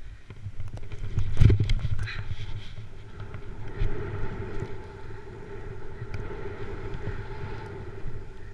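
Snowboard sliding and turning down a snow slope, its edges scraping the snow, with a loud scrape about a second and a half in and a steady hum under the rest. Wind rumbles on the GoPro's microphone throughout.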